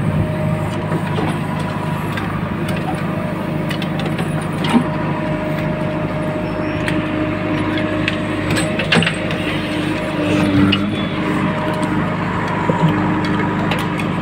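JCB 3DX backhoe loader's diesel engine running steadily, heard from inside the open cab, with a few short clanks and knocks from the machine.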